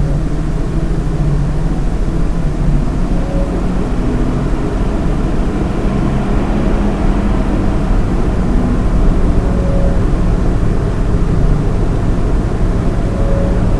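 Stock case fans of a Lian Li 217 INF PC case running at 50%: a steady rush of air with a low hum and a faint whine that comes and goes a few times, the resonance noise the owner blames on the case's stock fan setup.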